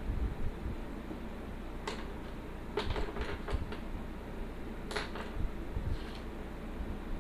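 Pen nib scratching across paper in short inking strokes: one about two seconds in, a quick run of four or five around three seconds, then single strokes near five and six seconds, over a low steady rumble.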